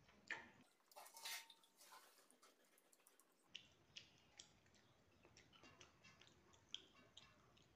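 Faint eating sounds from a person eating rice and mashed potato by hand off a steel plate: soft chewing and mouth clicks with scattered small ticks, and a brief denser rustle about a second in.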